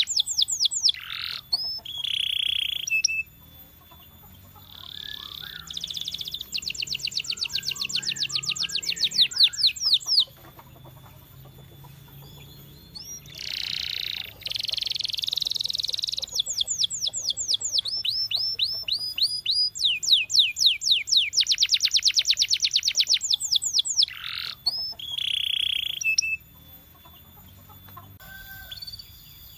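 Canary singing: phrases of fast trills made of quickly repeated sweeping notes, broken by short pauses and a few held whistled notes.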